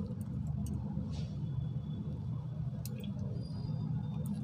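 Steady low hum of microphone and room noise, with a few faint clicks from a computer mouse as the slide is scrolled.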